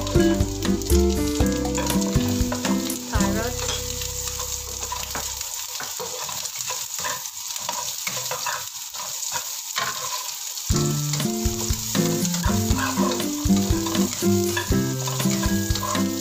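Dried shrimp sizzling in hot oil in a nonstick wok, stirred with a spatula that scrapes and taps against the pan. Julienned carrot sticks go in partway through and sizzle with the shrimp.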